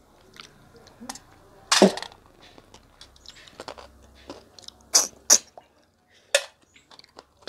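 River snails being sucked out of their shells: short, sharp slurps with quieter chewing and small clicks between. The loudest slurp comes about two seconds in, and two more come close together about five seconds in.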